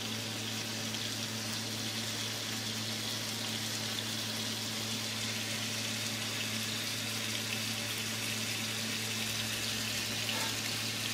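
Olive oil sizzling steadily around stuffed mushrooms in a small cast-iron skillet over a gas flame, with a steady low hum underneath.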